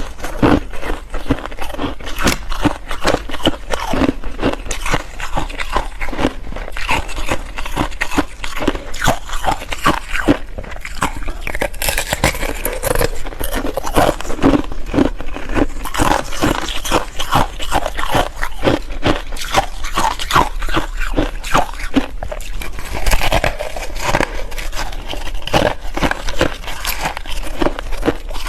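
Ice being bitten and chewed close to the microphone: a dense, continuous run of crunching and cracking.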